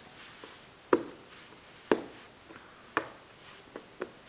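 Red plastic cups clacking as they are handled: three sharp clicks about a second apart, with a few fainter taps between.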